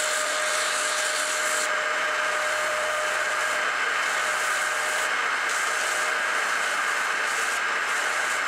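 Benchtop belt and disc sander running with a pine workpiece pressed against the abrasive: a steady hiss of sanding, with a faint steady tone that stops about five seconds in.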